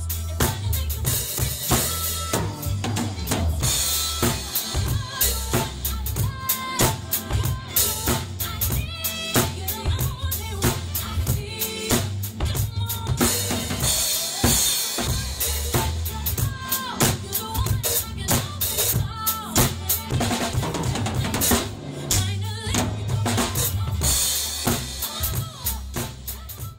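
Acoustic drum kit played with sticks, a busy groove of snare, bass drum and cymbals, over a recorded song with a melody.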